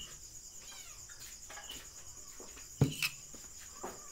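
Crickets chirping in a steady high trill. A sharp knock comes just before three seconds in, followed by a couple of lighter knocks.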